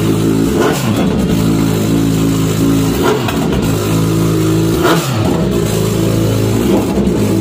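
Kawasaki Z900's inline-four engine running through a freshly fitted SC Project full-system exhaust, holding a steady idle with a few brief wavers in pitch.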